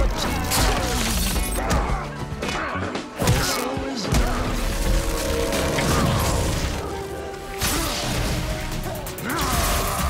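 TV action-scene soundtrack: dramatic score music under fight sound effects, with repeated blows and impacts.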